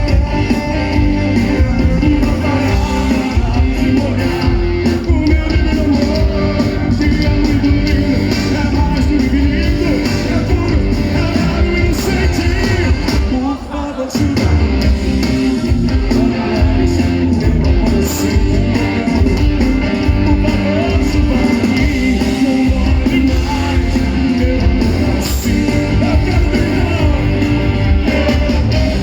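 Rock band playing a song with a lead singer, with a strong, steady bass line.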